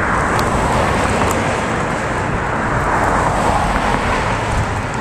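Road traffic noise heard from a bicycle on a bumpy road, over a constant rumble of wind and jolts on the microphone. A car passes, its tyre noise swelling and fading about halfway through.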